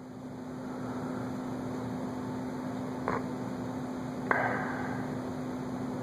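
Casablanca Centennial ceiling fan motor humming steadily as it comes up to high speed, the sound growing over the first second or so. A short sharp noise about four seconds in.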